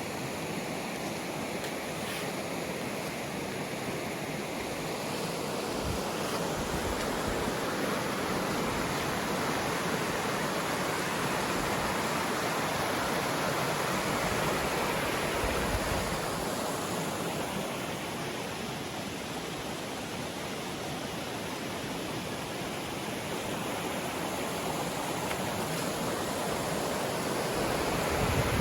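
Mountain creek water rushing steadily, an even full-range rush that swells slightly in the middle and again near the end.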